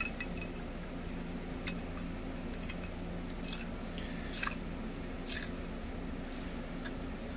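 Steady low hum of room tone with scattered light clicks and taps, about one a second.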